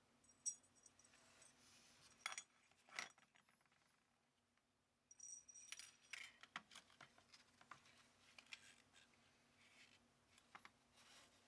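Faint clicks and clinks of small metal carburetor parts and tools being handled, with a few sharper taps in the first three seconds, a quiet pause around four to five seconds, then a run of small clicks.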